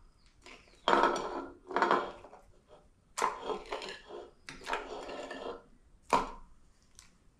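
Raw chicken tenders being laid one by one into the soup-and-gravy liquid in a slow cooker: a series of short wet slaps and splashes about a second apart, with a sharper knock about six seconds in.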